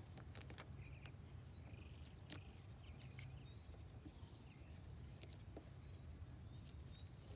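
Near silence: a steady low hum with a few faint, scattered light clicks.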